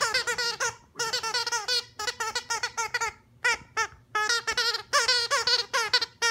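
Dog chewing a plush zebra squeaky toy, making it squeak rapidly over and over in quick runs broken by short pauses.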